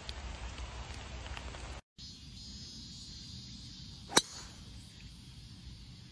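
A driver striking a golf ball off a tee: one sharp, short crack about four seconds in, over a faint outdoor background.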